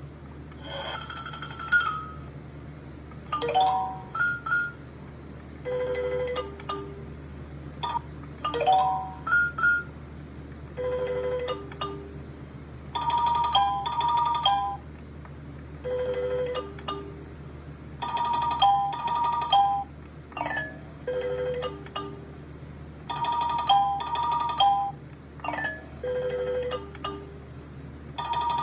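Rocket's chime sound effects: short electronic chime phrases of a few bright notes, some with sliding notes and some just two lower notes, repeating every two to three seconds over a low steady hum.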